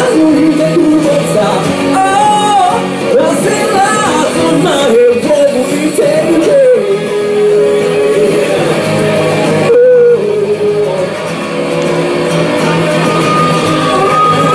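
Live acoustic song: a man singing into a microphone over an acoustic guitar, both amplified through a small speaker.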